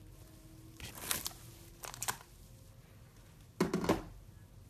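Thick, fluffy slime being squished and pressed, giving three short bursts of small clicks and crackles, the last and loudest about three and a half seconds in.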